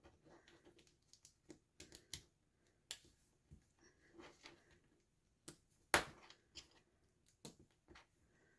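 Small plastic LEGO pieces clicking and clattering as they are picked through and handled, in irregular light clicks, with one louder click about six seconds in.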